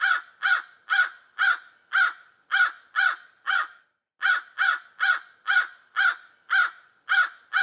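Crow cawing over and over, about two caws a second, in two runs with a short pause about four seconds in.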